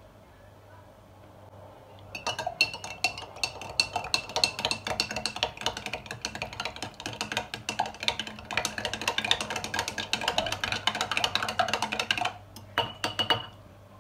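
Metal spoon stirring yeast into warm water in a glass jar mug, clinking rapidly against the glass with a faint ringing tone, starting about two seconds in; a few more clinks near the end.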